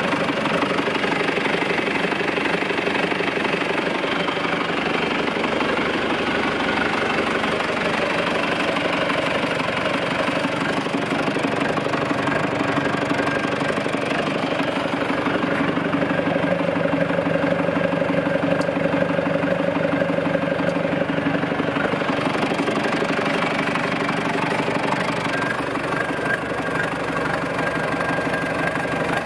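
1988 John Deere 2650 tractor's four-cylinder diesel engine idling steadily, its tone shifting somewhat in the middle.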